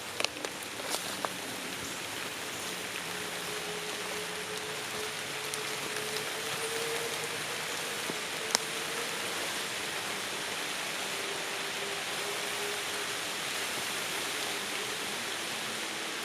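Light rain pattering steadily on tree leaves, with a few louder single drops ticking close by, several in the first second or so and one sharp one about halfway through.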